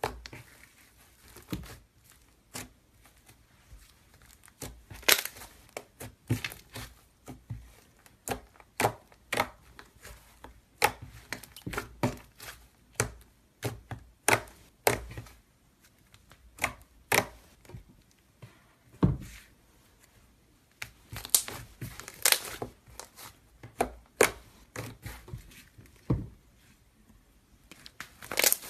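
Ice-cream-style slime being squeezed and pressed by hand, giving irregular sharp clicking and crackling pops as air pockets burst.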